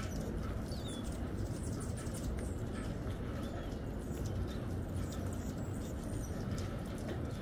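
Hummingbirds giving short, high chip and squeak calls, scattered all through, over a steady low rumble.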